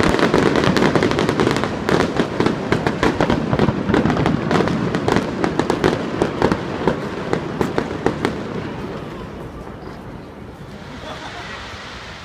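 Aerial fireworks display: a dense, rapid barrage of shell bursts and crackling bangs that thins out about eight seconds in and dies away to a fading rumble.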